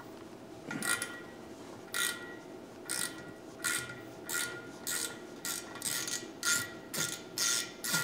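A hand tool worked in repeated short strokes, about one to two a second, each stroke with a faint ringing tone.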